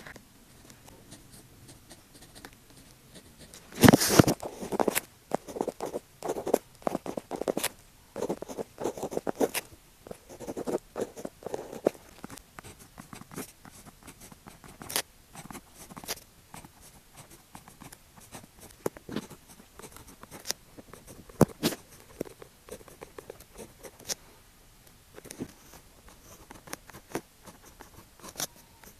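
Pen writing on paper in short, irregular strokes with brief pauses, with a louder cluster of strokes about four seconds in.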